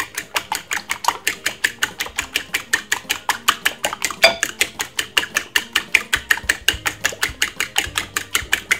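A metal fork beating eggs in a ceramic bowl, its tines clicking against the bowl in a quick, steady rhythm of about six to seven strokes a second.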